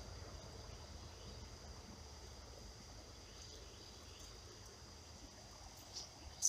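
Faint steady high-pitched drone of an insect chorus, with a couple of short soft knocks near the end.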